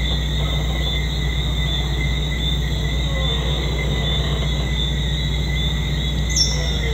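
Night chorus of calling insects, a steady high-pitched pulsing trill, over a steady low hum. One short, higher chirp stands out near the end.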